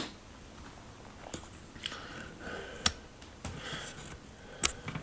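A few sharp, isolated clicks among faint rustling in a small room.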